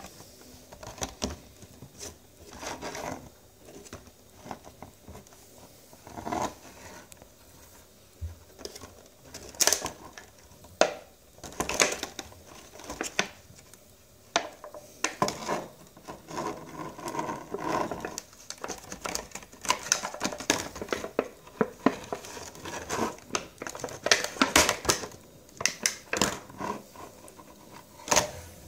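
Thin clear plastic packaging crinkling and crackling as hands handle and flex it, with irregular clicks and snaps.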